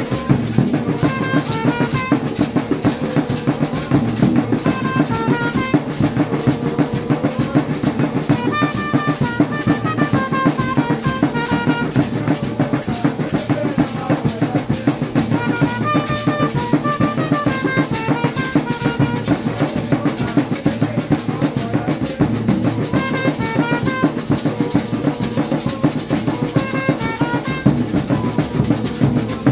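Several large double-headed drums beaten together in a fast, steady rhythm. A trumpet plays short phrases of separate notes over the drumming several times.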